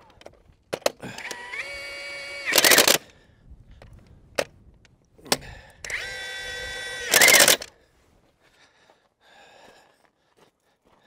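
Ingersoll Rand 1-inch-drive cordless impact wrench running down two bulldozer track-roller bolts, lightly snugging them. Twice the motor whines steadily as a bolt spins in, then hammers briefly and loudly as the bolt seats: about two and a half seconds in and again about seven seconds in.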